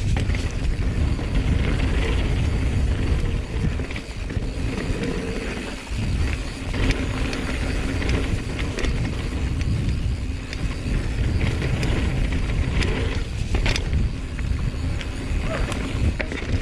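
Mountain bike descending a dirt singletrack: a steady rush of wind and rumble on the bike-mounted or body-mounted camera, with tyre noise and scattered clicks and rattles of the bike over bumps.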